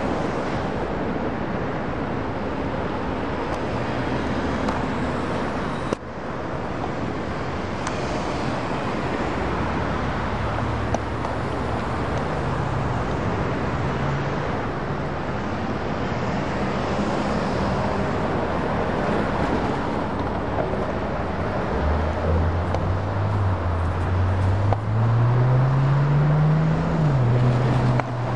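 Steady road-traffic noise, cars and trucks driving over a railroad grade crossing beneath an interstate freeway. Near the end one car's engine pulls away from the crossing, rising in pitch, dropping once at a gear change, then holding.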